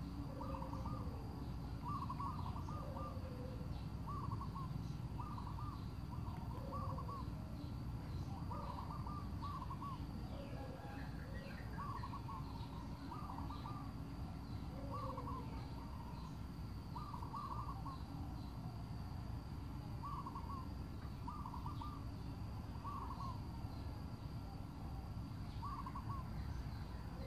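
Wild birds calling: short notes in clusters of two or three, repeating every second or two, with some lower falling notes, over a steady low rumble.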